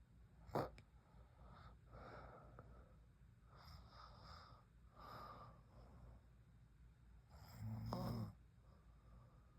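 A sleeping woman snoring softly, slow breaths coming every second or two, with one louder snore about eight seconds in. A short sharp sound about half a second in is the loudest moment.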